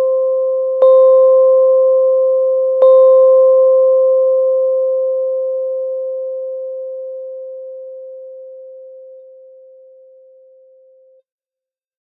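Timer chime marking the end of a three-minute countdown: one bell-like tone rung again twice about two seconds apart over its own ringing, then fading slowly and stopping shortly before the end.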